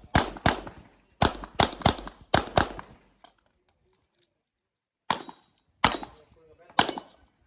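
Handgun shots in a rapid string, about six in the first two and a half seconds. After a sudden total silence, three more shots come about a second apart.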